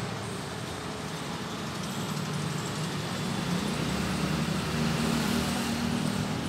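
A motor vehicle's engine running steadily over a noisy background, growing louder and rising a little in pitch in the second half.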